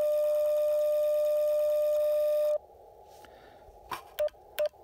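Icom IC-705 transceiver's CW sidetone: one steady tone with faint clicks while it sends a carrier for the Mat-Tuner mAT-705Plus antenna tuner to tune up. The tone cuts off about two and a half seconds in, leaving the radio's hiss, then a click and two short beeps at the same pitch near the end. The tuner has found a 1-to-1 match.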